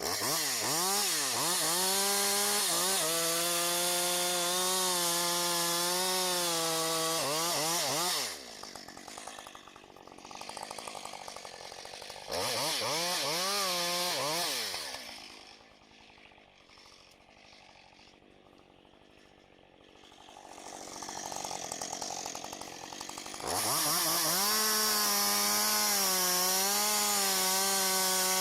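Husqvarna 545 two-stroke chainsaw at full throttle cutting wood, its pitch wavering under load. It drops off the throttle about eight seconds in and revs once briefly. It falls back to a low idle in the middle, then revs up and cuts again for the last few seconds.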